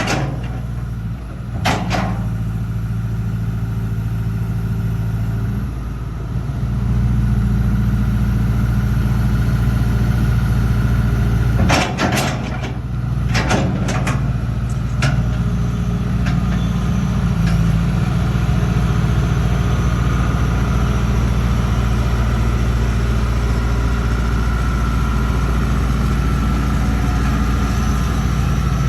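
Diesel engine of a Hitachi Zaxis 200LC (ZX200LC-3) crawler excavator running steadily, rising in speed and getting louder about six to seven seconds in. A sharp knock comes about two seconds in and a cluster of knocks about halfway through.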